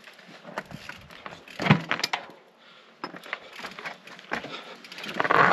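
A mountain bike clattering over loose volcanic rock: scattered knocks and rattles from tyres, chain and frame. A heavier knock comes about two seconds in, and the clatter builds again near the end.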